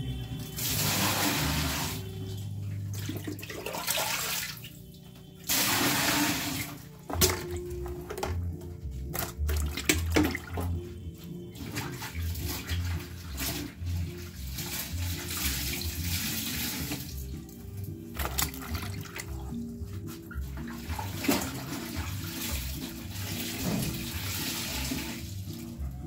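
Water splashing and sloshing in a plastic washtub as clothes are put in to soak, coming in several spells. Background music with a steady pattern of low notes plays throughout.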